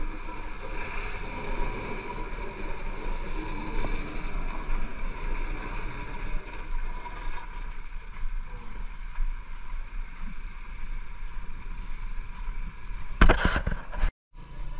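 Tractor engine running steadily, with a brief loud knock near the end.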